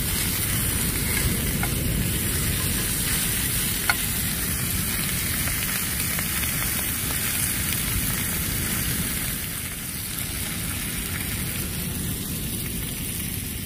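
Pork belly sizzling in a grill pan on a portable butane gas stove, a steady frying hiss, with one sharp click about four seconds in.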